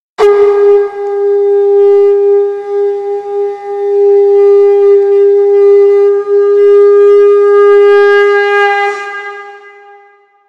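A conch shell (shankh) blown in one long held note, starting suddenly and fading out near the end.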